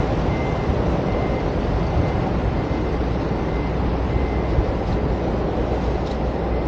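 Steady rumble of street traffic mixed with wind rushing over the microphone of a camera riding on a bicycle. A faint high tone comes and goes several times.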